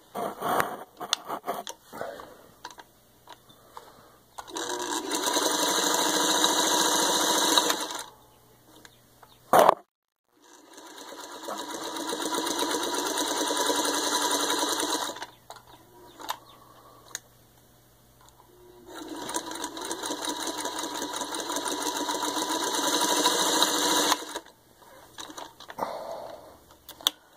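Singer 301A sewing machine stitching through six layers of denim, forward and in reverse, in three runs of a few seconds each, each picking up speed as it starts. Between the runs come light handling clicks and one sharp, loud clack.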